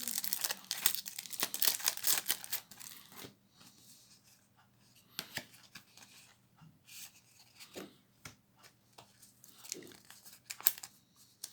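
Paper and plastic packaging rustling and crinkling as a trading card theme deck's contents are handled. The rustling is dense for the first three seconds, then thins to scattered soft rustles and clicks.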